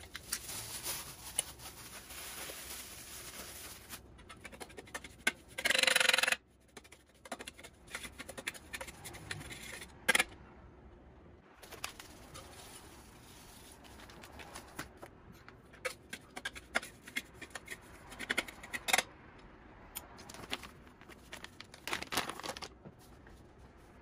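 Kitchen handling sounds. A measuring spoon clicks and scrapes as it scoops nutritional yeast from a crinkly plastic bag into a stainless-steel bowl of chopped nuts, then salt is shaken from a pouch into the bowl. Light ticks and clicks are scattered throughout, with one louder noise lasting about a second, roughly six seconds in.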